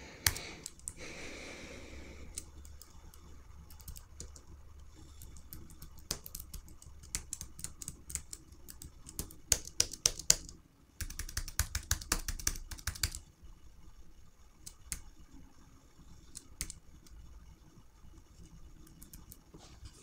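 Computer keyboard keys clicking in irregular runs of taps as an on-screen menu is stepped through, with the fastest flurries around the middle.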